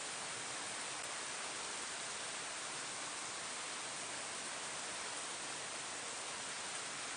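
Steady rain falling on leaves, an even hiss with no single drops standing out.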